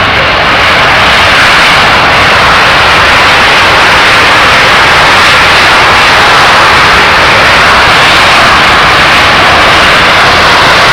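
Jet aircraft noise, very loud and steady, swelling slightly in the first second and then holding.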